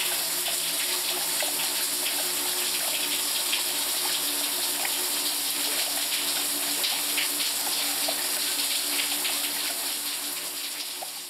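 Water running steadily from a tap into a tub or basin, a continuous splashing hiss with small drips, fading out near the end.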